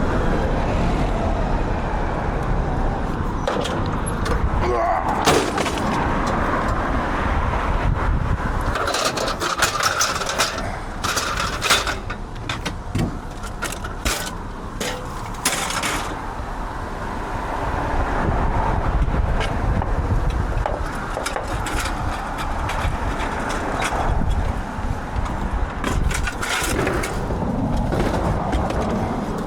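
Steady running of a vehicle, with bursts of metal clanks and scrapes as a scrap dishwasher is handled on a truck's tail lift, the clanks clustering between about nine and sixteen seconds in and again near the end.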